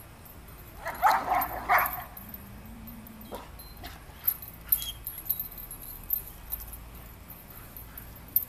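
Belgian Malinois dogs vocalizing in a short burst of calls about a second in, then a few scattered sharp clicks.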